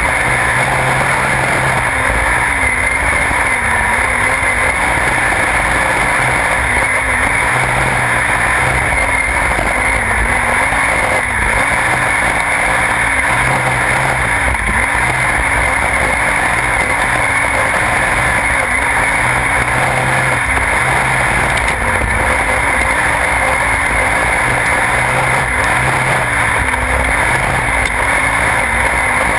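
Onboard sound of a sprintcar's V8 racing engine at speed, its note rising and falling every few seconds as the car goes around the track, under a continuous rush of wind and tyre noise.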